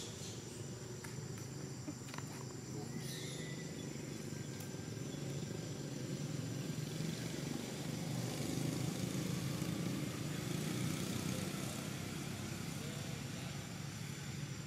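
Outdoor ambience: a steady high-pitched insect drone with a low rumble underneath that swells through the middle and eases near the end.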